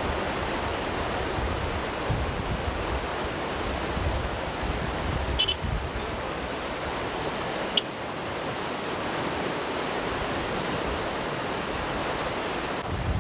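A swollen, muddy stream in flood, rushing and churning through branches and brush in a steady, unbroken wash of water noise.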